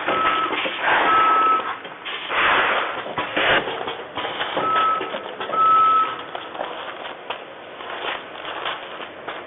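ATM-320C vertical form-fill-seal packing machine running its cycle, with clacks and bursts of hissing noise. Two pairs of short, steady high beeps sound, one pair at the start and another about five seconds in.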